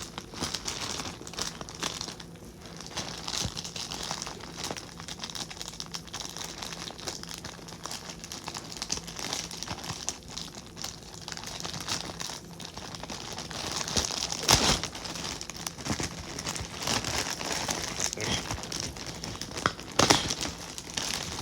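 Plastic packaging crinkling and rustling as it is punctured with a pencil and torn open by hand, with two sharper snaps, one about fourteen seconds in and one near the end.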